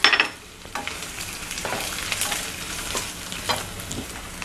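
Oil sizzling steadily as peanuts, garlic, dried red chillies, curry leaves and chopped ginger fry in a nonstick kadai. A wooden spatula scrapes and stirs through them now and then.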